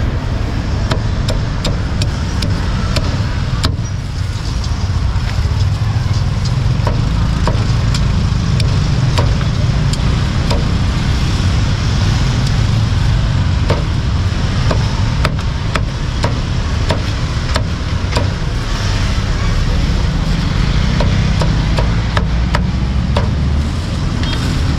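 Cleaver chopping roast pork on a board in irregular sharp knocks, over a steady rumble of street traffic.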